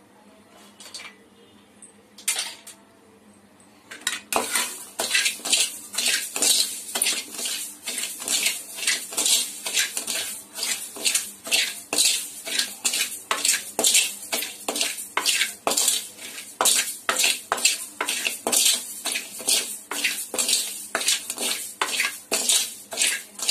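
A metal spoon scraping and stirring rice around a pan as it dry-roasts, in rapid repeated strokes starting about four seconds in. Before that there are only a few light clicks.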